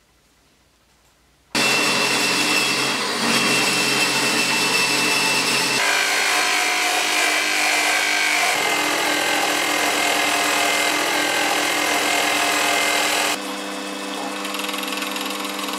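Near silence, then from about a second and a half in a benchtop CNC mill's end mill cuts into a block of aluminium: the spindle's steady whine sits over the harsh scraping of the cut. The sound changes a couple of times and gets quieter near the end.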